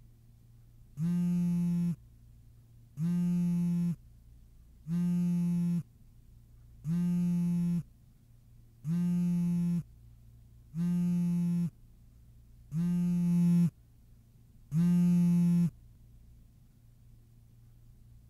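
A phone buzzing: a low, buzzy tone just under a second long, repeating every two seconds, eight times, stopping about two and a half seconds before the end. A faint steady hum runs underneath.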